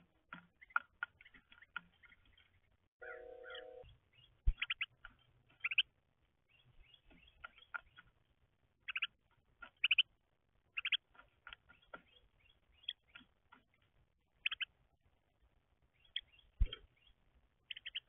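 Small songbirds chirping at a feeder: many short call notes, some in quick runs, with a sharp knock a few seconds in and another near the end.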